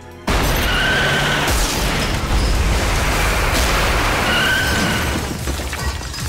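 A heavy crash: an armoured truck smashing through a wall, with rubble tumbling. It starts suddenly a quarter second in and carries on as a loud, dense rumble.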